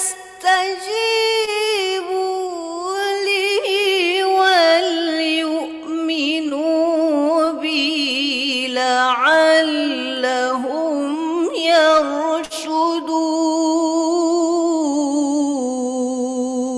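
A woman reciting the Quran in slow, melodic tajweed style. She draws out long ornamented notes with wavering turns, pausing briefly for breath between phrases. Her pitch steps gradually lower and settles on a long held note near the end.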